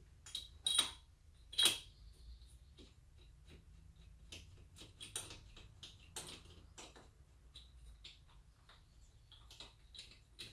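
Metal hand tools clinking and tapping on the quad's frame and engine during repair work: an irregular string of small metallic clicks, with two louder ringing clinks within the first two seconds.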